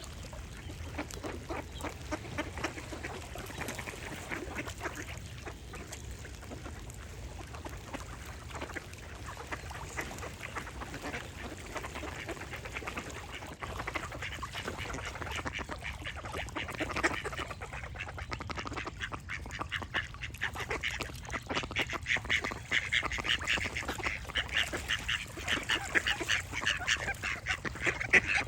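Ducks quacking in a rapid, continuous chatter that grows busier and louder in the second half, with birds singing in the background.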